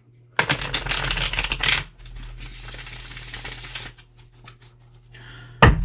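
A tarot deck being shuffled: a rapid run of clicking for about a second and a half, then a softer rustle for about two seconds. A single sharp knock comes near the end.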